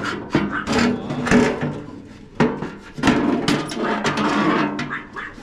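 Sheet-metal parts of a gas grill knocking and scraping as a tray is pulled out of the grill and handled, a run of irregular clatters and sliding scrapes.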